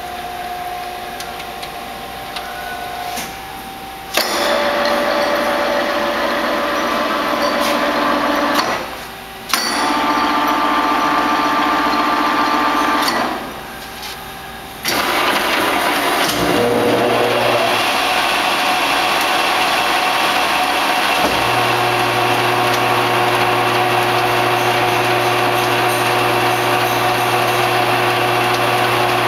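Blanchard 42-inch rotary surface grinder running under power: steady electric motor hums that step louder in stages, with short dips as parts are switched off and on. About sixteen seconds in a motor spins up with a rising whine, and a few seconds later a deep steady hum joins and holds.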